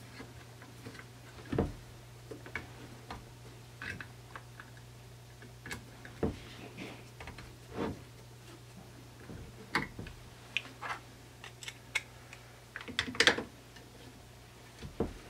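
Irregular small clicks and taps of plastic protective caps being pushed onto an inverter's DC terminal posts and the heavy cables being handled, with a cluster of louder clicks near the end. A faint steady low hum sits beneath.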